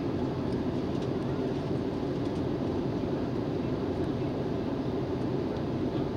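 Steady cabin noise of an Airbus A321 airliner in flight, a low, even rush of engines and airflow heard from inside the passenger cabin.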